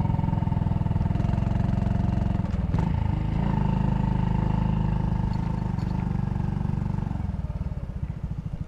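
Honda Cross Cub 110's single-cylinder four-stroke engine running steadily, then easing off about seven seconds in, when its separate firing pulses can be heard.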